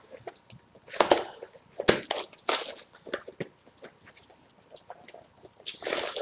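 A pack of trading cards being opened by hand: the wrapper crinkles and tears in several short, irregular bursts of crackling.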